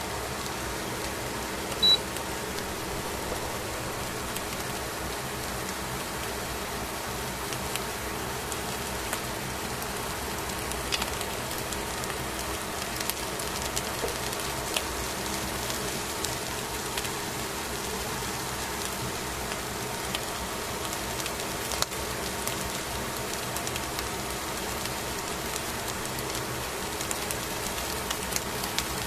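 Fish fillets on aluminium foil sizzling as they grill: a steady hiss with scattered small pops and crackles. A short high blip sounds about two seconds in.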